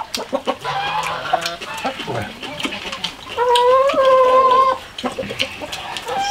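Chickens calling, with one loud drawn-out call lasting over a second about three and a half seconds in.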